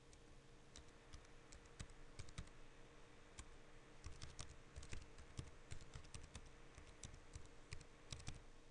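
Faint typing on a computer keyboard: irregular keystrokes in quick runs, as a search term is typed into a package manager's filter box.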